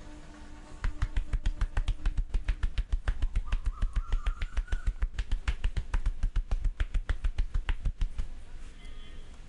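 Barber's hands striking rapidly and rhythmically on the body during a percussive massage, about seven sharp slaps a second, each with a dull thud. The strikes start about a second in and stop shortly before the end.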